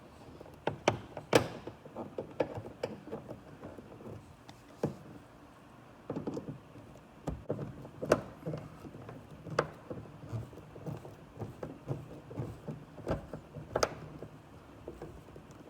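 Scattered clicks, taps and knocks of plastic interior trim being fitted and fastened by hand in a third-generation Camaro's cabin, with a few louder knocks and a stretch of rubbing.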